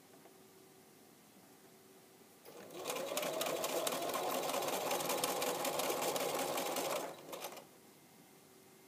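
Electric sewing machine stitching bias binding onto a fabric pocket edge with an edge-stitching foot. It starts about two and a half seconds in, speeds up to a fast, even run of needle strokes with a rising hum, and stops after about four and a half seconds.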